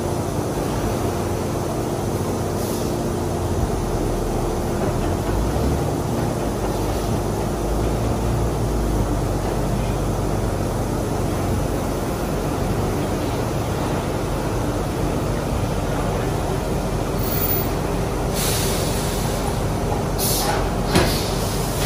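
Truck engine running as a loaded grain dump truck reverses slowly, with a few short, sharp sounds near the end.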